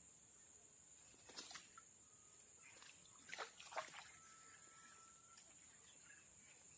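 Quiet forest ambience: a steady high-pitched insect drone, with a few short sharp sounds about a second and a half in and again around three and a half seconds in, some of them falling quickly in pitch.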